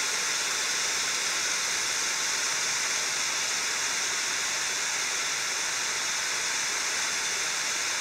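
Mountain creek running: a steady hiss of flowing water with no change in level.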